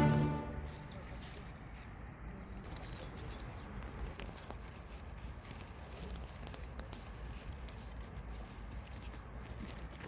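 Background music fading out, then quiet outdoor ambience with a low rumble, a few faint bird chirps and scattered light taps.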